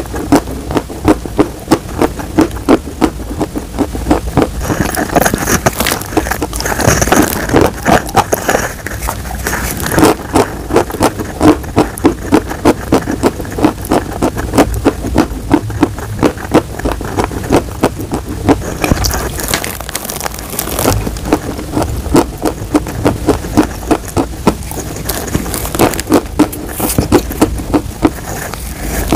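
Close-miked crunching and chewing of hard white chalk, a rapid run of crisp crunches a few times a second, some bites louder than others.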